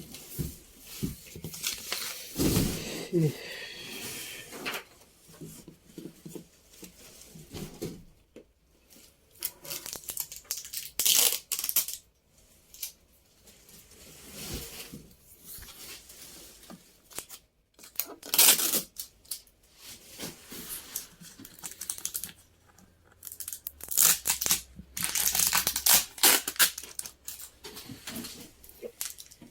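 Packaging being torn and crumpled by hand, in irregular bursts of tearing and rustling with pauses between them.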